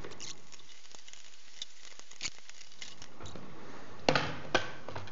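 Small clicks and scrapes of a screwdriver working the screws out of a plastic laptop bottom cover, then two sharper plastic clicks near the end as the access cover is lifted off.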